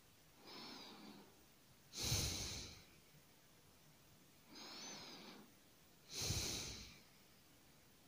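A sleeping person's slow, heavy breathing: four breaths, a quieter one with a faint nasal whistle alternating with a louder, fuller one, about two seconds apart.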